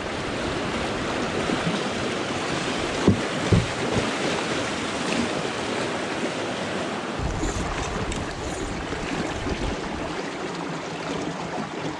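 River water rushing and splashing around a small inflatable raft through a riffle, with wind buffeting the microphone. Two short thumps come about three seconds in.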